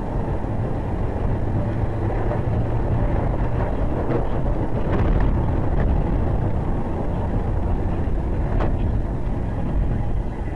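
Steady driving noise inside a car on a rain-soaked road: engine and wet tyre rumble, with a few faint clicks.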